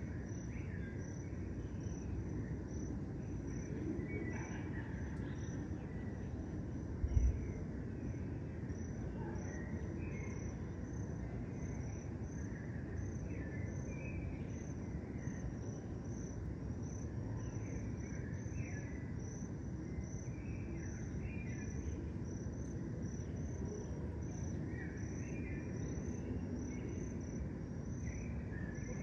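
Crickets chirping in a steady, even rhythm, roughly twice a second, with short scattered bird calls over a low, steady background rumble. One brief low thump about seven seconds in.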